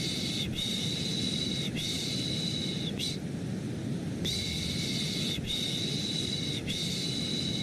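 Rhythmic 'shh' shushing repeated over a steady bed of white noise. Each shush lasts about a second, and they come in runs of three long ones and a short one, with a pause of about a second between runs.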